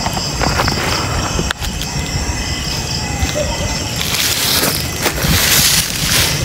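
Night insects trilling steadily in several high, unbroken tones, over low rumbling handling noise. About four seconds in, a loud rustling hiss rises and covers them.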